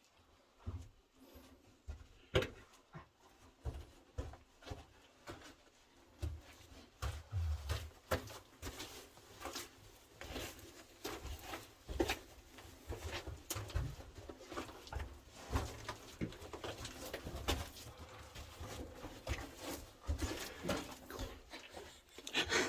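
Footsteps and handling noise: irregular soft thuds, scuffs and clicks, sparse at first and coming closer together after about six seconds.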